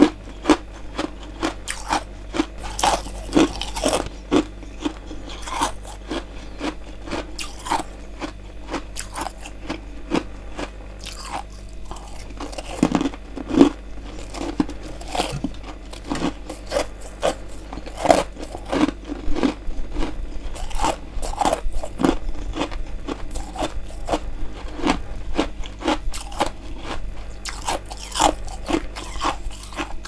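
Person biting and chewing freezer frost and ice chunks: many crisp, irregular crunches.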